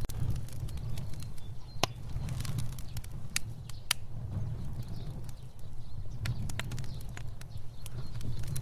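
Fire burning: a steady low rumble of flame with frequent sharp crackles and snaps, a few louder pops standing out.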